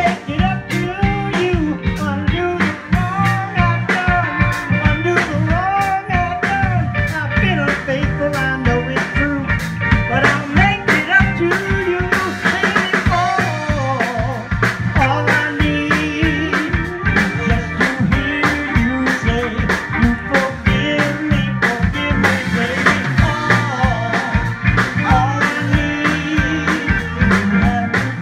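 A live band playing: a man singing into a handheld microphone over electric guitars and a drum kit keeping a steady beat.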